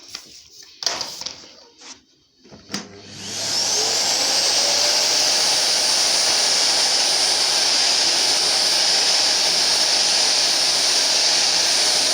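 A Bosch vacuum cleaner is switched on after a few clicks. About three seconds in its motor spins up with a rising whine, then it runs loud and steady. The nozzle is in hard-floor mode with its brush lowered, and it glides over floor tiles without scraping or friction noise.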